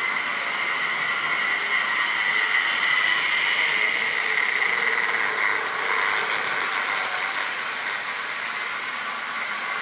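Model train running on metal track past the microphone, with a steady high whine over running noise from the wheels. It grows louder for the first few seconds as the train passes close, then eases off.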